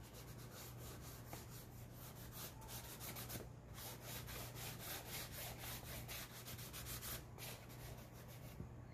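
Fingers rubbing white chalk into black poster board to blend it: a faint, soft rubbing in quick, repeated strokes, with two brief pauses.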